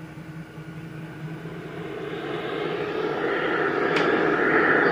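Weather radio hissing with static while tuned to channel 2, the hiss swelling steadily over the last few seconds, with a sharp click about four seconds in.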